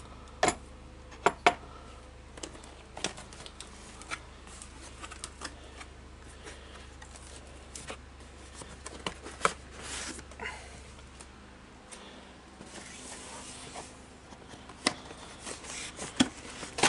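Cardboard box being handled and opened, with scissors to hand: scattered sharp clicks and taps of cardboard flaps and packing, and a stretch of rustling about thirteen seconds in. A low steady hum stops about twelve seconds in.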